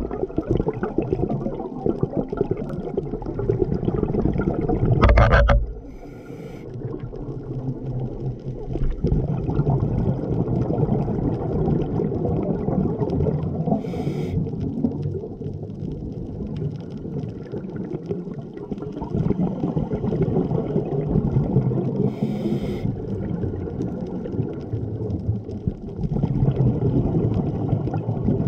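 Scuba regulator breathing heard underwater: a steady low bubbling rumble of exhaled air, with a short hiss of inhalation roughly every eight seconds and one louder gush of bubbles about five seconds in.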